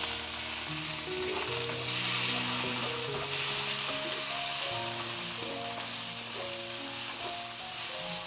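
Garlic, onion and meat sizzling in hot oil in a stainless steel wok, the sizzle swelling a few times as the food is stirred and turned with a spatula. Soft background music plays underneath.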